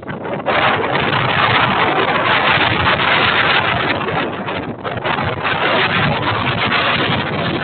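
Strong wind gusts buffeting the microphone during a windstorm: a loud, steady rush of noise that dips briefly just after the start, then stays strong.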